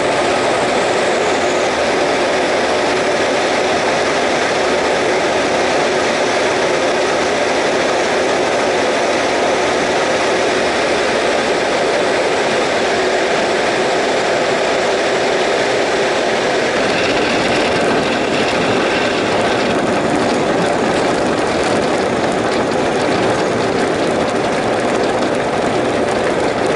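Single-engine light aircraft's piston engine and propeller running at a steady low power while taxiing on a grass airstrip, heard from inside the cabin. From about two-thirds of the way in, light clicks and rattles sound over the engine.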